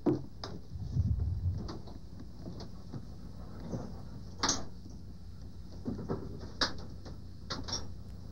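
A few scattered sharp knocks and clicks, the loudest about four and a half seconds in and again near six and a half seconds, over a steady low hum.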